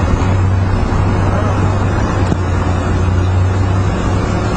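Steady low hum under a constant rushing noise, unchanging throughout.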